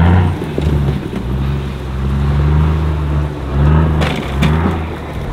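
Vehicle engine running at low speed while crawling along an overgrown trail, revving up briefly about four seconds in. Sticks and brush crack and snap around the same moment.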